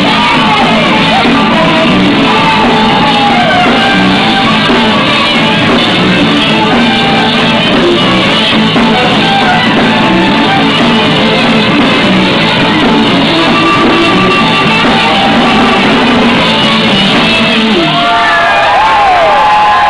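A live rock band playing loud, with voices shouting over it. About eighteen seconds in the band stops and the crowd cheers and whoops.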